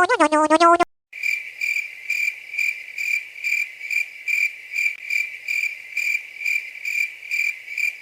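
Cricket chirping sound effect: evenly spaced high chirps, a little under three a second, starting about a second in after a short voice clip cuts off.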